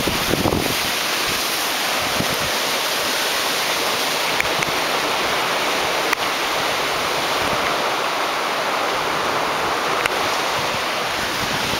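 Swift creek rapids: white water rushing steadily over rocks.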